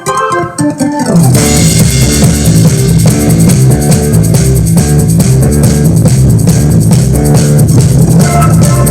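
Sven SPS-611S desktop PC speakers playing rock music with drums, guitar and heavy bass. It comes in about a second in, just after a short piano passage ends.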